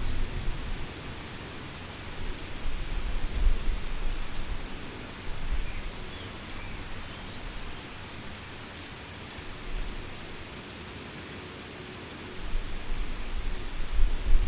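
Heavy rain falling as a steady hiss, with low thunder rumbles swelling and fading several times and strongest near the end.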